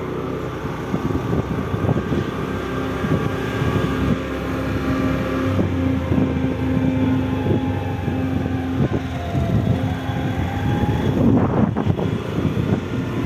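A two-wheeler's engine running steadily as it rides along, with wind buffeting the microphone in irregular gusts.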